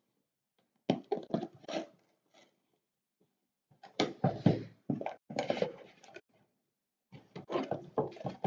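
Hands opening a cardboard box: scrapes, taps and rustles of cardboard and a paper seal being peeled off. They come in three bunches: about a second in, from about four to six seconds, and near the end.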